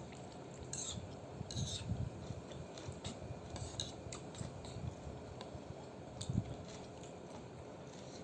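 Eating utensils clicking lightly against a bowl of noodle soup, with soft chewing sounds.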